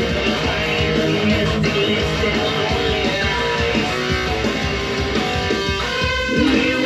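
Jackson electric guitar playing a busy riff of quick notes.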